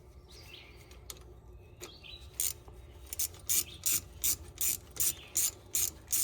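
Ratchet with a long extension and 8 mm socket clicking as it runs down the retaining bolt of the differential cross pin. The clicking starts about two seconds in and comes in short bursts, about three a second.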